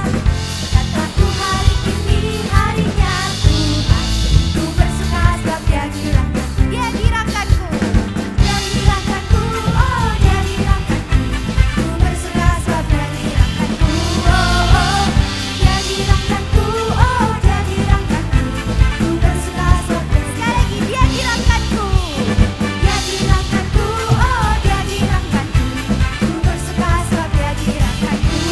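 Live worship band playing, with singers over keys, guitars, bass and a closely heard drum kit keeping a steady beat.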